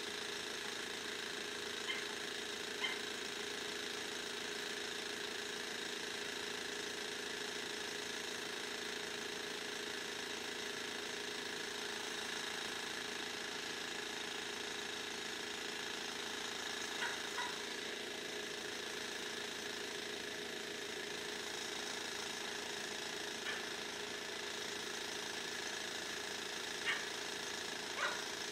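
KLD-4013 railroad-crossing warning bell ringing steadily while the crossing is closed, with a few short clicks scattered through.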